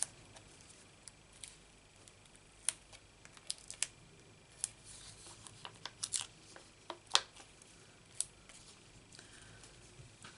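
Faint, irregular small clicks and paper ticks from peeling foam adhesive dots off their backing sheet and pressing them onto a card panel, the loudest about seven seconds in.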